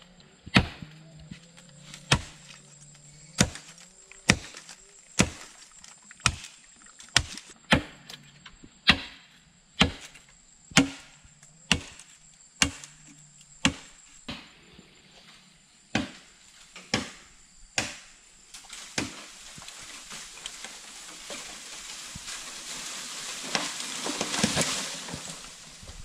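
Machete chopping into the base of a large green bamboo culm, sharp strikes about once a second. Then the chopping stops and a rustling, crackling swell of leaves and branches builds and fades near the end, as the cut stalk tips over through the clump.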